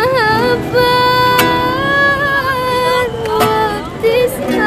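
A woman singing, holding one long note through the middle, to a strummed nylon-string classical guitar.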